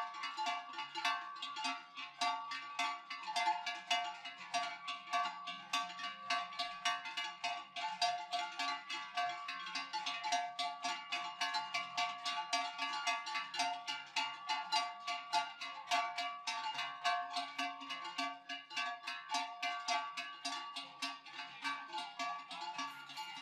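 Many large cowbells on a herd of walking cows clanging continuously and irregularly, their strikes overlapping into a ringing chorus of several steady pitches.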